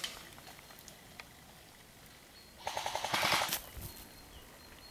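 Airsoft rifle firing one full-auto burst of about a second, about two and a half seconds in: a fast, even rattle of shots.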